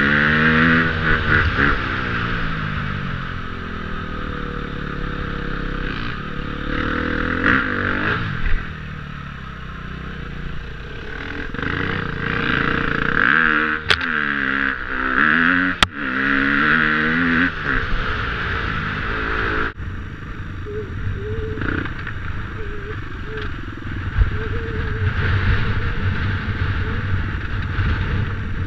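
2014 KTM 250 EXC-F dirt bike's single-cylinder four-stroke engine revving up and down under changing throttle while riding a rough track, with a steady rush of wind and rattling from the bike over the bumps. Two sharp clicks sound near the middle.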